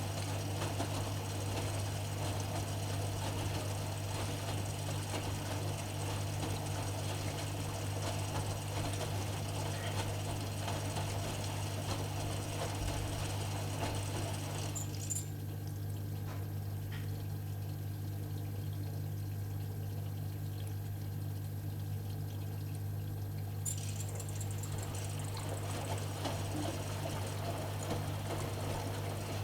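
AEG Öko-Lavamat washing machine running its wash cycle: water sloshing in the turning drum over a steady low motor hum. The sloshing drops away about halfway through, leaving the hum, and comes back near the end.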